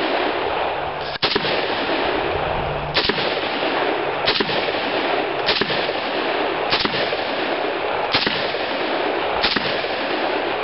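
CETME rifle in .308 firing seven single semi-automatic shots at an even pace, about one every second and a quarter. A loud steady noise fills the gaps between shots and cuts off abruptly near the end.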